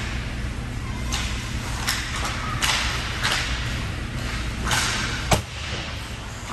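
Ice hockey skate blades scraping and carving on the ice in short strokes over the steady hum of an indoor rink, with one sharp clack of a stick or puck about five seconds in.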